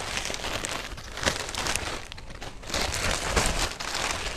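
Plastic courier mailer bag crinkling and rustling as it is handled, with irregular sharp crackles of the plastic.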